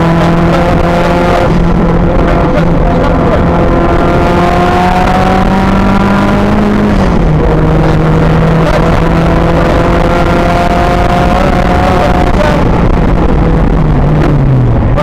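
Rally car engine running hard, heard inside the cabin: its pitch climbs slowly and falls back sharply about seven seconds in and again near the end, as at upshifts, over constant road and cabin noise.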